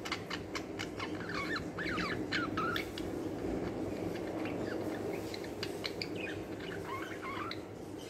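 Budgerigars chattering: quick squeaky chirps and clicks, coming in two spells, the first about two seconds in and the second near the end.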